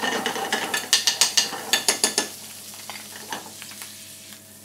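Diced potatoes sizzling in truffle butter in a nonstick frying pan on high heat, browning to a crisp crust, as the pan is shaken and tossed: a quick run of sharp clattering hits in the first two seconds or so, then a quieter sizzle with a few clicks.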